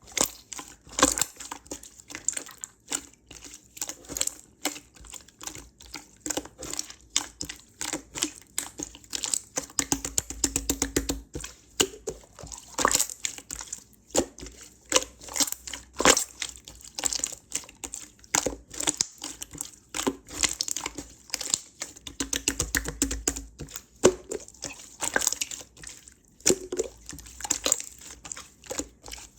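Hands squeezing and stretching aloe slime, giving a continuous run of sticky, wet clicks and pops.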